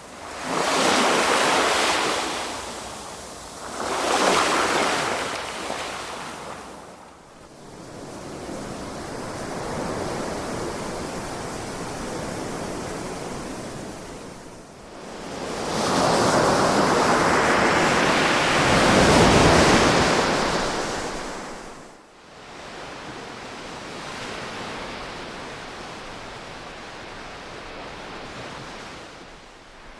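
Ocean waves breaking and washing on a shore: two quick surges near the start, then a steady wash, then a longer, louder surge in the middle that falls away to a softer hiss.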